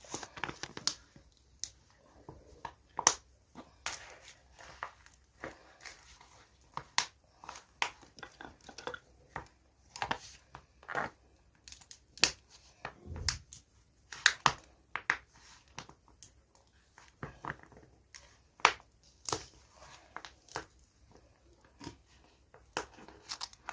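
Irregular clicks, taps and crinkling from a small plastic container and a can of polyester resin being handled while resin is taken out for mixing.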